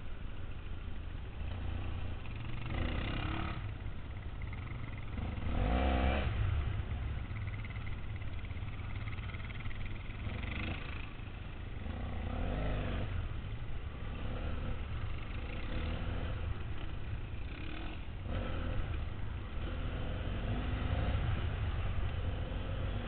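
Dual-sport motorcycle engine revving up and falling back over and over as the rider works the throttle over the bumps and hills, the loudest surge about six seconds in. A steady low wind rumble on the helmet-mounted camera lies under it throughout.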